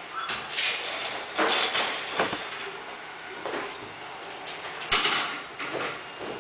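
Steel kart lift trolley and go-kart chassis clattering and scraping as the kart is tipped and lifted off the trolley by hand. A sharp knock, the loudest sound, comes about five seconds in as the kart comes down onto the floor.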